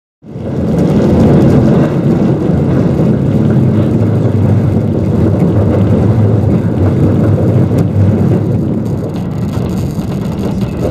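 Electric tram running along its track, heard from inside the car: a steady, loud low rumble of wheels on rail and motor that cuts in abruptly about a quarter second in.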